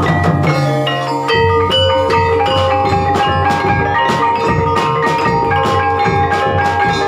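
Ebeg Banyumasan dance accompaniment: a gamelan-style ensemble of tuned mallet-struck instruments playing a ringing, repeating melody, with a low drum beat that comes in about a second in.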